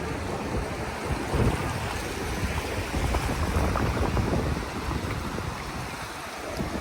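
Sea waves washing on the shore, with wind buffeting the microphone in gusts that swell about a second in and again around the middle.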